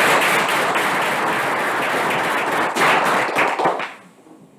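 Audience applauding, the clapping stopping about four seconds in.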